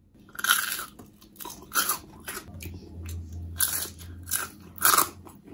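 Crispy oven-roasted potato fries crunching, about seven short, sharp crunches spread over a few seconds; the crunch shows how crisp the roasted crust is.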